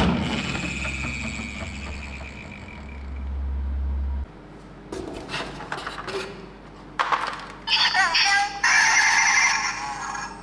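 Toy ambulance's electronic siren sound chip playing wavering tones in loud stretches from about seven seconds in, after a low rumble dies away around four seconds in.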